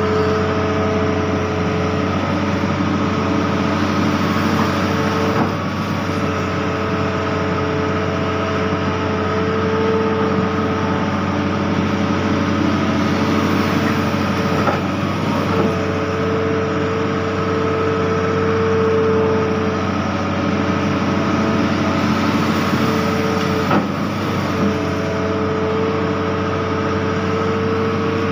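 Hitachi Zaxis 210F amphibious excavator's engine running steadily under load, with a pitched whine that comes and goes in stretches of a few seconds as the boom and bucket work the water.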